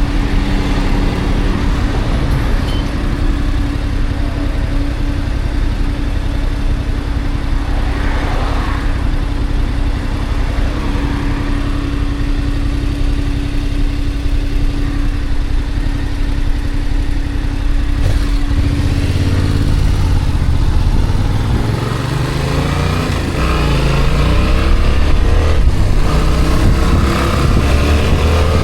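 A road vehicle driving, its engine running steadily under road noise. About twenty seconds in, the engine's pitch climbs as it accelerates.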